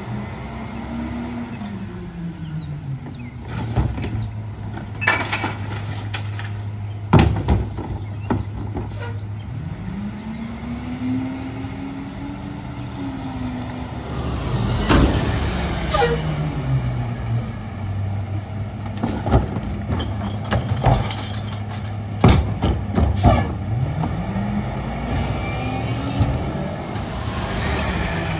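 Diesel engine of a rear-loader garbage truck idling, then speeding up and settling back three times as the hydraulic packer cycles. Sharp clanks and bangs of recycling bins and loose recyclables being tipped into the rear hopper.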